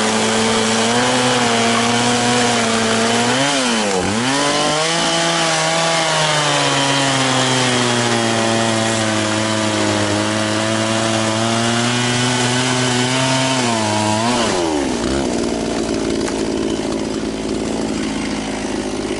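Echo CS-670 two-stroke chainsaw cutting through a dead log at full throttle, its engine pitch held steady under load with a brief dip and recovery about four seconds in. About fourteen seconds in it revs up as the bar comes free, then drops to a low idle.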